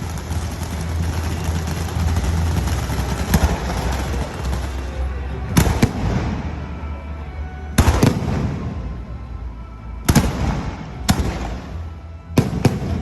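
Fireworks going off: a dense rapid crackling for the first few seconds, then loud sharp bangs every one to two seconds, some in quick pairs, each with a ringing tail.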